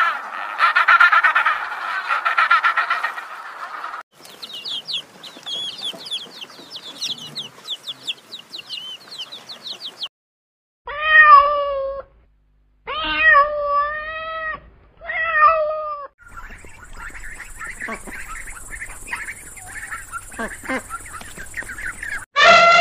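A run of short animal clips. It opens with a dense stretch of animal calls, then a string of rapid high chirps, then three drawn-out cat meows about a second apart. A fainter stretch follows, and a loud call falling in pitch starts near the end.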